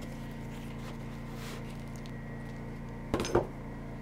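A cardboard box being handled and pulled out of a milling machine vise, with two sharp knocks close together about three seconds in, over a steady low hum.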